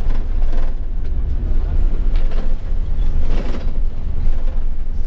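Coach bus driving, heard from inside its cabin: a steady low rumble of engine and road noise.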